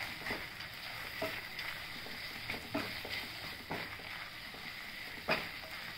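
Red silicone spatula stirring and scraping thick almond halwa in a nonstick kadhai, with a faint sizzle from the pan and soft, irregular taps of the spatula, the loudest about five seconds in.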